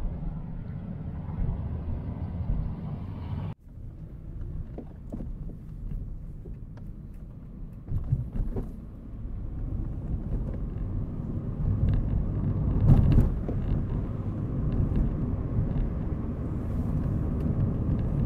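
Road noise inside a moving car's cabin: a steady low rumble of engine and tyres, with a few light knocks and clicks. The sound drops out abruptly for a moment about three and a half seconds in, then the rumble resumes and grows a little louder later on.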